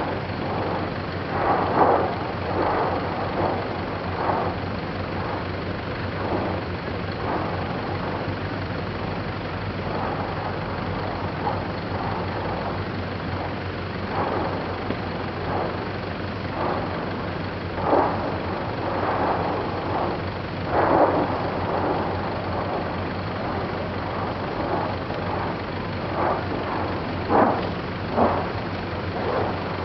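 Eyjafjallajökull lava fountain erupting: a continuous rushing noise broken by irregular louder whooshing bursts as the fountain surges, every second or so in places and several seconds apart in others. A steady low hum runs underneath.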